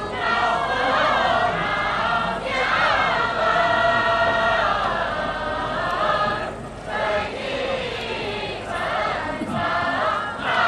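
A large choir singing a slow song in long held phrases, pausing briefly between them.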